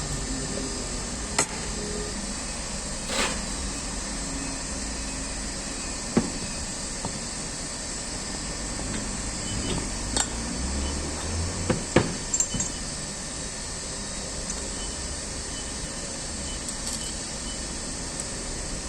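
Scattered knocks and clinks of hand tools against metal pump parts, a few seconds apart, over a steady background hiss.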